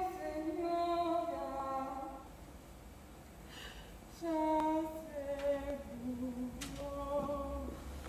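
A woman singing alone without accompaniment, slow and plaintive, in long held notes. There are two phrases, with the second starting about four seconds in: an actress singing as Ophelia in a stage performance of Hamlet.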